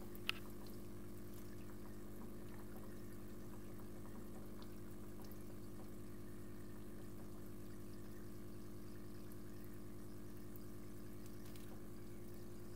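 Aquarium pump humming steadily with water trickling into the tank, and one sharp click just after the start.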